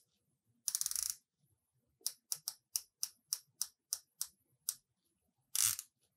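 The Oris Aquis Monkey King's dive bezel with its ceramic insert being turned by hand and clicking: a quick run of clicks about a second in, then single clicks about four a second for nearly three seconds, and another quick run near the end. The clicks are crisp and well-defined, the sign of a solid bezel with very little back play.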